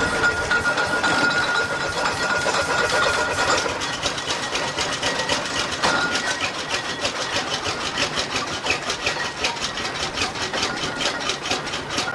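Fowell traction engine running in steam without its chimney or smokebox door fitted, giving a rapid, even train of exhaust beats that quicken a little in the second half.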